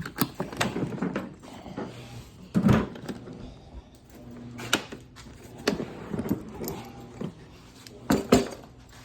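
Plastic toolbox cases being handled: clicks and knocks of latches, lids and tools being moved, with several heavier thunks.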